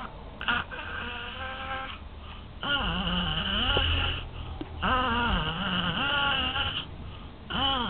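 A five-month-old baby vocalising in long, wavering, drawn-out sounds. A shorter, weaker one comes about half a second in, then three longer ones of about two seconds each with short pauses between.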